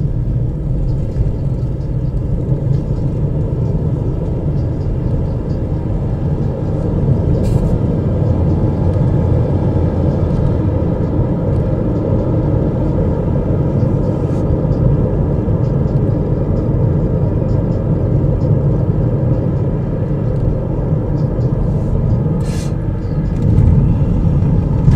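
Steady low rumble of a car's engine and tyres on the road, heard from inside the cabin while driving, with three brief faint ticks.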